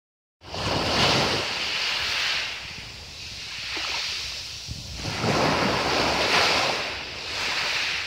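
Small waves breaking and washing over a fine pebble beach, a hiss of foam and wet shingle that swells and fades in three surges: shortly after the start, around the middle, and near the end.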